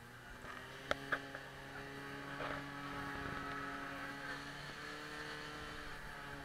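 Portable fire pump's engine running steadily under load, driving water through the attack hoses to the nozzles. There are a couple of sharp knocks about a second in.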